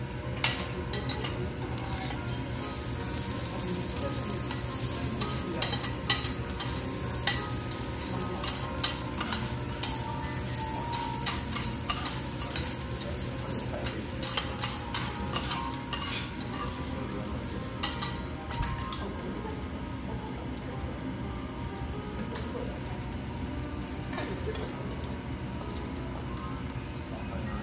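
Food sizzling on a teppanyaki griddle in a steady hiss, with frequent sharp clicks and taps of utensils that thin out after about eighteen seconds.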